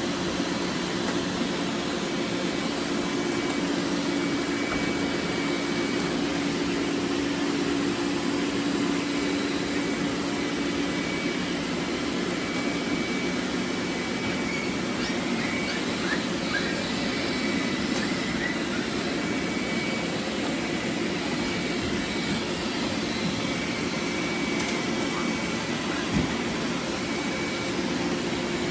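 Several robot vacuums running together: a steady whirring drone of suction fans and brushes with a low hum underneath.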